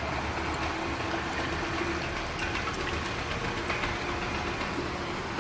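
Steady mechanical hum of a running motor: a constant low drone with a steady mid-pitched tone over it.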